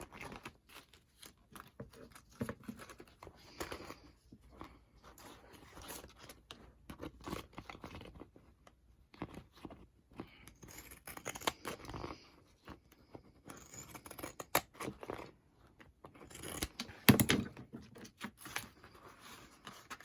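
Scissors snipping in a run of short, irregular cuts, with rustling as the piece is handled. A louder knock comes about seventeen seconds in.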